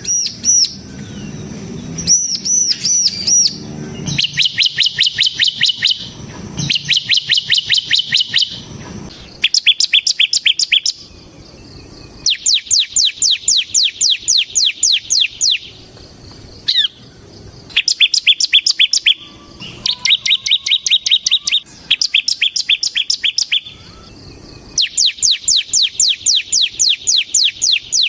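Bar-winged prinia (ciblek) singing vigorously in its rapid rattling 'ngebren' trill. It gives about nine bursts of fast, evenly repeated high notes, each lasting one to three seconds, with short pauses between them.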